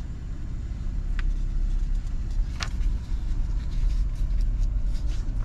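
Steady low rumble of a car running, heard from inside the cabin, with a few sharp crinkles of paper sheets being handled, most of them in the last second or two.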